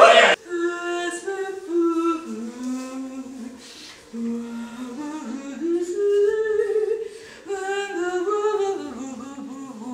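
Choir voices humming a slow, wordless a cappella melody in held notes that step up and down in pitch, at times two notes together. A louder voice breaks off sharply just after the start.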